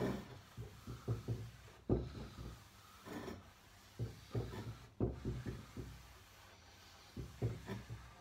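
Fine steel wool pad rubbing wax into a wooden tabletop, in bursts of quick back-and-forth scratchy strokes with short pauses between them.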